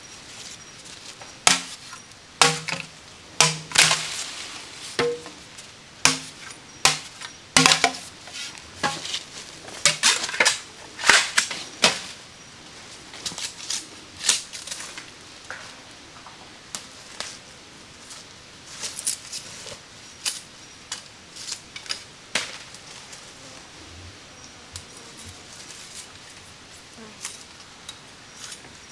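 Irregular sharp knocks and taps from a hand tool striking material while a trap is being made, with some strikes giving a short hollow knock. The strikes come thick and fast for the first twelve seconds or so, then thin out to occasional taps.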